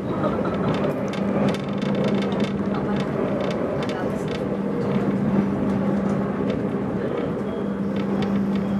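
Running noise heard inside a moving passenger train coach: a steady rumble and hum, with scattered light clicks and rattles.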